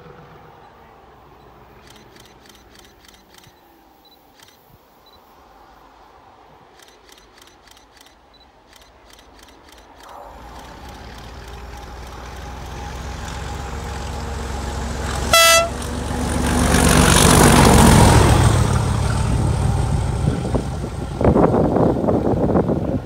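Class 37 diesel locomotive 37425 accelerating, its English Electric V12 engine running under power and growing steadily louder as it approaches. It sounds one short blast on its horn, passes loudest a couple of seconds later and then fades as it goes by.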